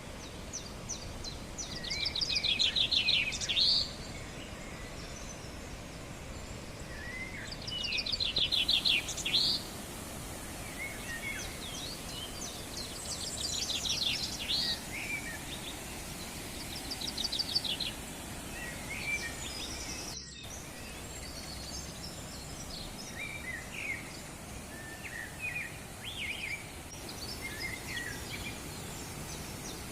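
A songbird singing loud, rapid trilled phrases, four of them spaced several seconds apart, followed by shorter scattered chirps, over a steady background hiss.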